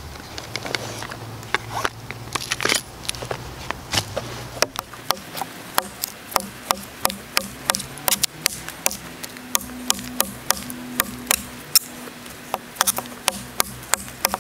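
A big chopping knife striking a dead log, chopping into the wood. There are a few scattered blows at first, then from about four seconds in a steady run of about two to three chops a second.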